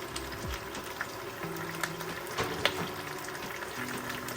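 Spinach sautéing in a hot pan: a steady sizzle with scattered crackles and sharp clicks, the loudest a little past the middle.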